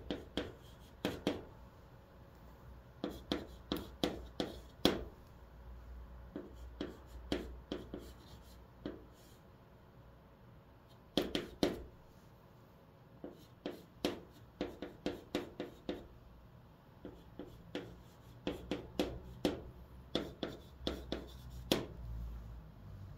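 White chalk in a holder writing hanja characters and Korean on a green chalkboard: clusters of quick taps and short scratches, one per stroke, with pauses of a second or two between characters.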